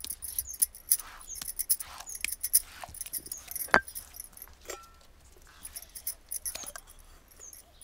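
Ground chana dal chutney being scraped off a stone grinding slab: a run of small scrapes and taps, with light metallic clinks. One sharp, ringing clink about four seconds in is the loudest sound.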